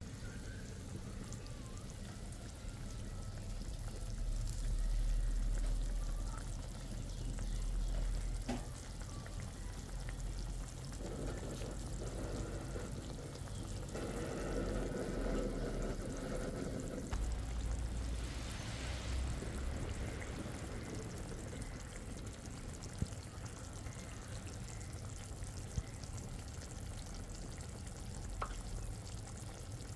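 Cooking sounds while a drumstick-leaf saaru is being made: liquid pouring into a pot, with stirring and sizzling in a pan and a few sharp utensil clicks.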